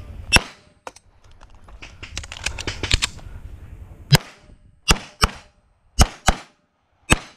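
Pistol shots in rapid-fire competition shooting. A single shot comes near the start, then a few seconds of scuffling movement noise, then a run of shots, mostly fired in quick pairs about a third of a second apart.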